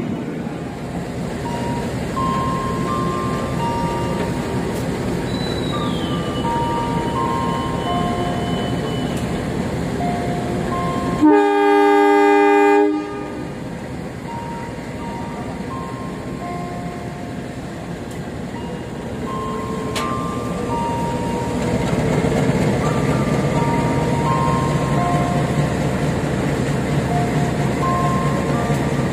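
CC 203 diesel-electric locomotive running at the platform, with a faint high whistle held for a few seconds about six seconds in, the conductor's departure whistle. About eleven seconds in the locomotive horn sounds once for about a second and a half, the driver's departure acknowledgement (signal 35). From about twenty seconds in the engine runs louder as it takes power to depart.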